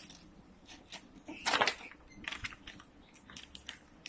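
Plastic toy packaging being handled and opened: a series of light clicks and crackles, with one longer, louder crackle about a second and a half in.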